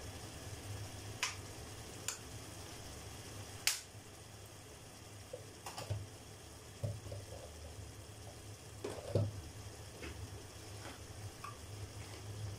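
Sliced sausage and tomato frying gently in a pot on a gas burner: a faint steady sizzle over a low hum, with a few sharp pops and clicks.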